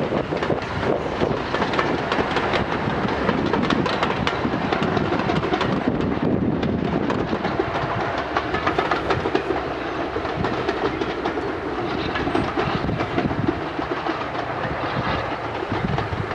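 Steam-hauled passenger train running past: the locomotive's exhaust chuffs and the coaches' wheels clatter on the rails.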